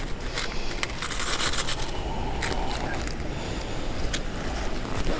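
Scattered small clicks and scrapes of hands handling a plastic packet of weedless fishing hooks, over a steady low background rumble.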